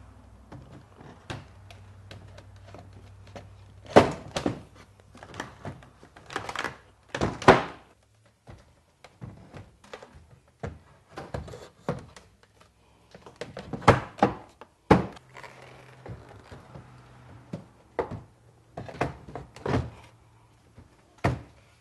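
Painted wooden sign boards being lowered over corner posts and knocked into place on top of a wooden booth frame: a dozen or so irregular knocks and thunks, several of them loud, wood on wood.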